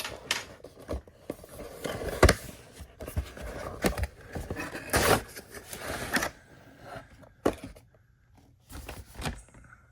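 Cardboard toy box and its plastic packaging being opened by hand: irregular scrapes, tears and crinkles, with a few sharper clicks, dying down near the end.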